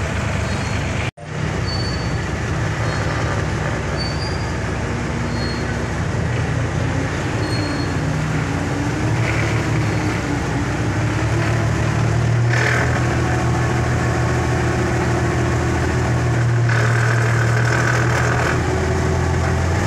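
A river ferry's engine runs with a steady low drone under a wash of water and wind noise, heard from on deck. The sound cuts out sharply for an instant just over a second in and swells a little louder in the second half.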